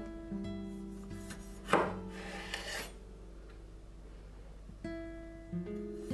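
Acoustic guitar music throughout, with a chef's knife cutting through a cherry tomato onto a wooden board about two seconds in: a sharp chop followed by about a second of scraping.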